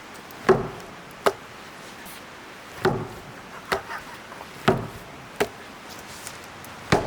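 Axe blows chopping into a large log to split it for firewood, about four heavy strikes roughly two seconds apart, each followed by a sharper knock.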